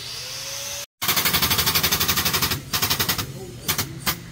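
Fast, even mechanical rattling, about a dozen pulses a second, in one run of over a second and then in short bursts, from the pump of a red hydraulic guided-bend tester pressing a weld test coupon. A steady hiss comes before it.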